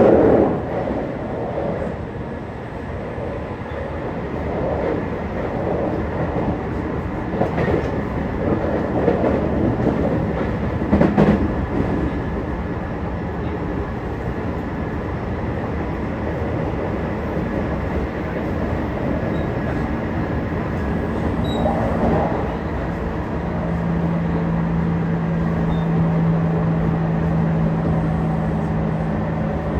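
Tokyu 5050 series electric train running, heard from inside the passenger car: a steady rumble of wheels on rail with a few knocks over rail joints in the first half. About two-thirds of the way in, a steady low hum comes in and holds.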